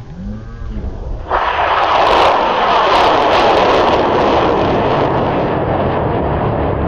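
High-power model rocket motor lighting about a second in: a sudden loud rushing roar at liftoff that slowly fades as the rocket climbs away.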